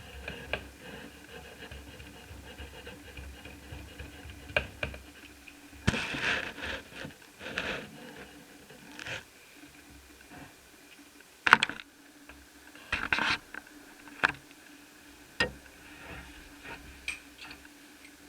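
Small parts being handled on a workbench: scattered sharp clicks and taps with a few short scrapes, the loudest click about two-thirds of the way through.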